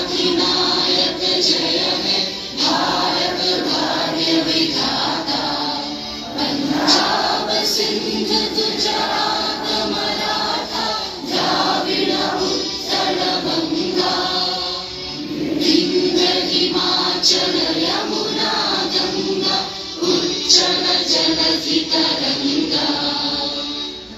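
A large group of schoolchildren singing a song together, in long sung phrases with brief breaks between them.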